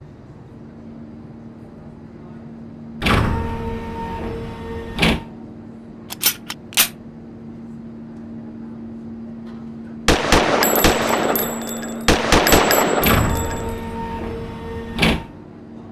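Gunfire sound effects for an intro: a single shot with a ringing tail about three seconds in and another around five seconds, a few light metallic clicks, then a rapid burst of shots from about ten to thirteen seconds and one last shot near the end. A steady low hum runs underneath.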